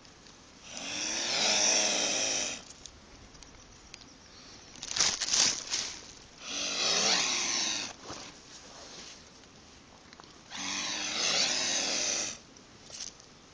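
Mute swan hissing, three long raspy hisses of about two seconds each with a shorter one in between, a threat call at the dog in front of it.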